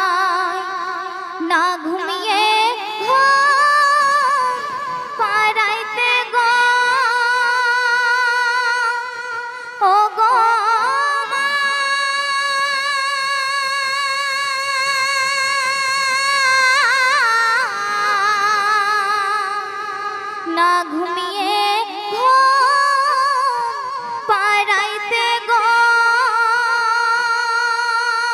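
A woman's solo voice singing a Bengali gojol into a microphone, drawing out long held notes of several seconds each with ornamented swoops in pitch between them.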